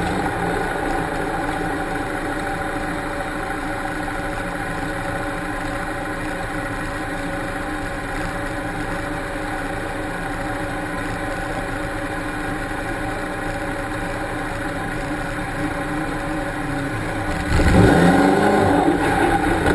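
Jeep autocross car's engine idling steadily, heard from on the car. Near the end comes a louder burst of engine revving that swings down and up in pitch.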